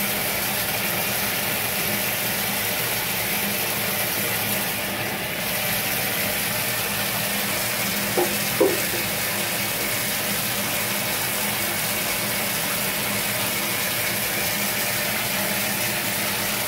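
Water running steadily into a bathtub, a constant hiss with a faint low hum. Two brief high squeaks sound about eight seconds in.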